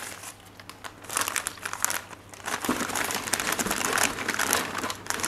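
Paper packing rustling and crinkling as a wrapped orchid is pulled out of a box of shredded-paper filler, in two spells with a short lull about two seconds in.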